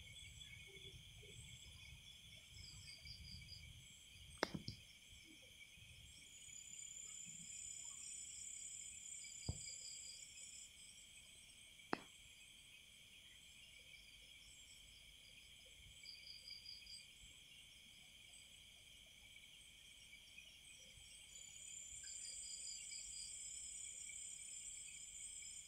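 Faint insect chorus: a steady trilling at two pitches, with a higher buzz lasting several seconds twice and short chirping bursts every few seconds. Three sharp clicks stand out in the first half.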